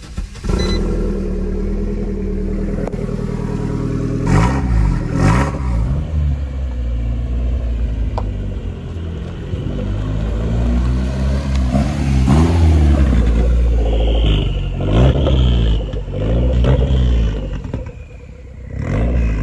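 Ford Sierra Cosworth's turbocharged four-cylinder engine revving up and dropping back again and again as the car is driven through the gears.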